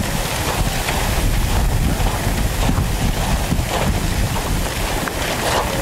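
Deafening, steady rushing noise with a heavy low rumble inside the dust and debris cloud from the collapse of a World Trade Center tower, buffeting the microphone.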